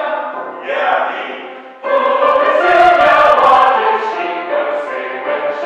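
Mixed choir singing in harmony: a phrase fades away, then the full choir comes in loudly about two seconds in and holds.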